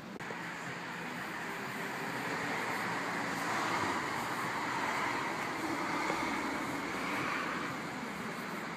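Motor vehicle noise: a steady rushing, like road and traffic noise, that builds over the first few seconds and holds.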